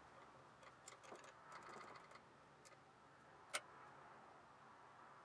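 Near silence broken by a few faint clicks in the first two seconds and one sharper click about three and a half seconds in.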